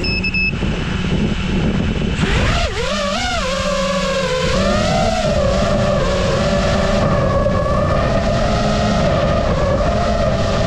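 Motors and propellers of a five-inch iFlight Nazgul Evoque F5X FPV quadcopter, heard from its onboard camera. They start suddenly and loudly, whine up and down in pitch with the throttle for a couple of seconds, then settle into a steady whine as the drone flies fast and low.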